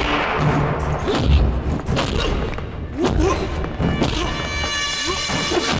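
Film fight sound effects: a rapid series of heavy punch and kick thuds and whacks, mixed with short grunts and shouts, over dramatic action music that comes forward in the last couple of seconds.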